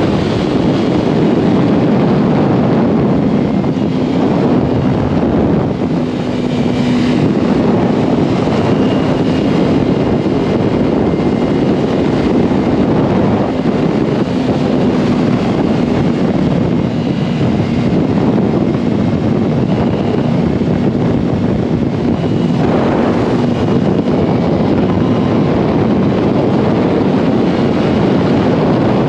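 Yamaha R1 sportbike riding at a steady speed, its inline-four engine running under a heavy rush of wind on the microphone.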